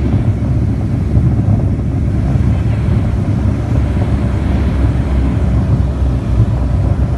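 Steady low drone of a Twin Otter's turboprop engines and propellers, heard inside the cabin during the landing on the beach.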